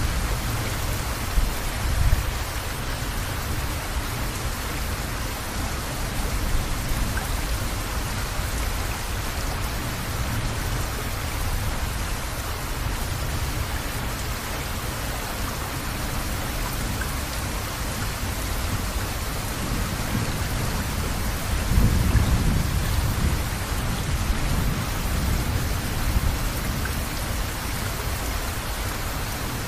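Steady rain with low rolls of thunder: a short one about two seconds in and a longer one about two-thirds of the way through.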